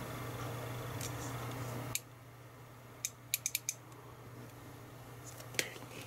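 Electric desoldering pump's electromagnet buzzing with a steady low mains hum while the button is held, then cutting off abruptly about two seconds in. The electromagnet isn't pulling the plunger shaft in, so the pump only buzzes and doesn't suck. A quick run of light clicks follows about a second later.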